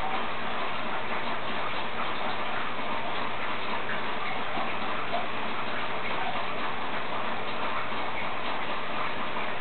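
Steady background hiss, even throughout, with no distinct events.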